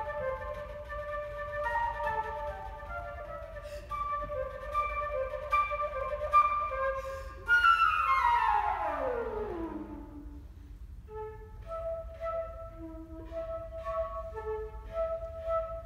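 Solo concert flute playing a train-imitating piece with extended techniques: several notes sounding at once, broken by sharp percussive clicks. About seven and a half seconds in, a loud note slides steeply down in pitch over a couple of seconds. Then short, detached notes with clicks follow in a steady, chugging pulse.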